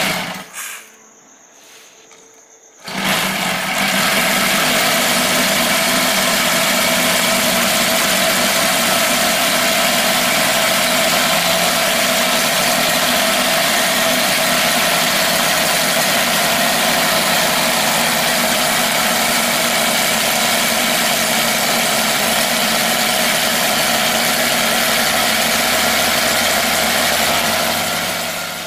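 Model seven-cylinder radial four-stroke glow engine running with its propeller spinning. It comes in suddenly about three seconds in and holds a steady, loud note until it falls away near the end.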